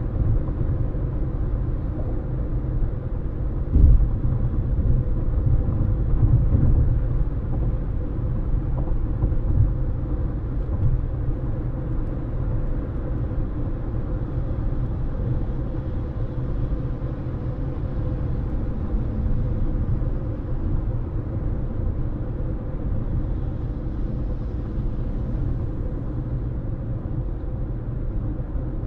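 Road noise of a moving car: a steady low rumble from the tyres and engine, with a brief thump about four seconds in.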